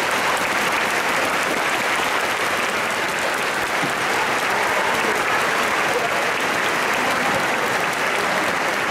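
Spectators applauding steadily.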